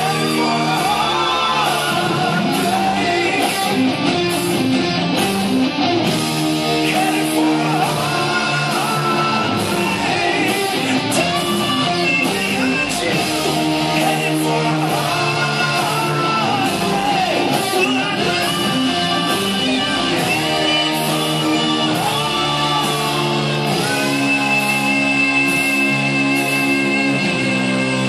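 Electric guitar lead with string bends and vibrato, over a rock accompaniment of sustained held chords.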